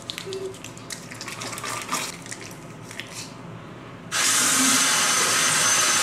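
A bathroom sink tap turned on full about four seconds in, water running and splashing as the face is rinsed, cutting off suddenly about two seconds later. Before that, only faint clicks and rubbing.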